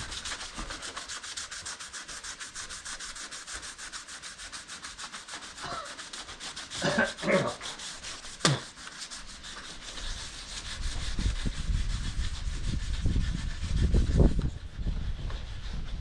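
Sandpaper scuffing over hardened body filler on a truck's panel, a steady, rapid scratching. A low rumble rises in the second half.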